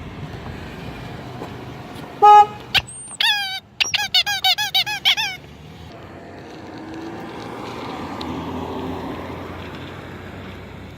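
A hand-held horn sounded near the microphone: one steady toot about two seconds in, then a quick run of about eight short squeaky honks whose pitch bends up and down. Afterwards a car passes, swelling and fading over the last five seconds.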